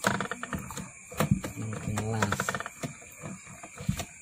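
Coil winding machine turning a transformer bobbin as enamelled copper wire is wound onto it, with irregular clicking and ticking from the winder's mechanism. A brief pitched sound comes about two seconds in.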